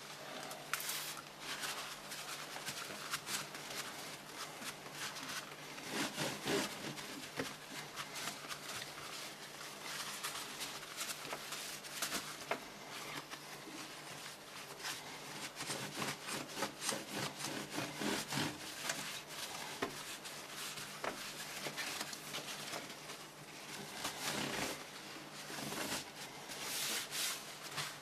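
Hands working on a computer case: continual rubbing and scraping with frequent sharp clicks and knocks.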